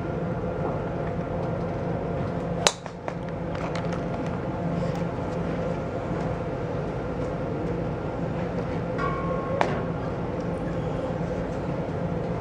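A driver striking a golf ball off the tee: one sharp crack about three seconds in, over a steady low machine hum.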